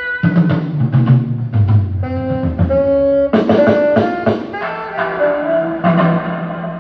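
Live band playing: a horn line of held, stepping notes over drums and bass.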